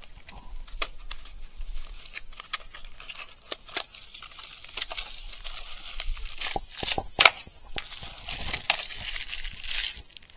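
Handling noise from wiring-kit parts and their packaging: rustling and crinkling with scattered clicks and knocks, the loudest a sharp knock a little past the middle.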